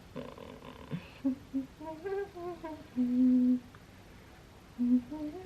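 A woman humming a tune to herself: a string of held notes stepping up and down, then a pause of about a second before a few more notes near the end.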